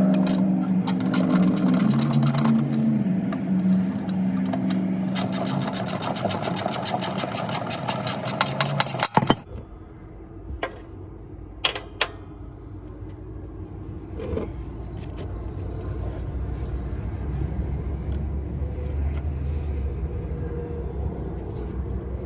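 Impact wrench hammering rapidly on a bolt of the drive-axle airbag mount, in two runs that stop suddenly about nine seconds in. After that come a few sharp clicks and a low steady rumble.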